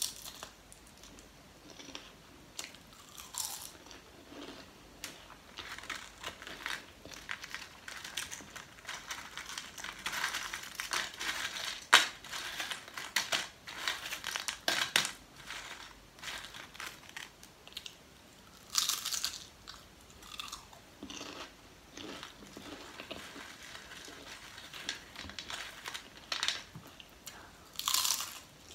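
Lay's potato chips being bitten and chewed close to the microphone: crisp cracks as each chip is bitten, then runs of crackly crunching as it is chewed. The loudest bites come near the start, about two-thirds of the way through, and near the end.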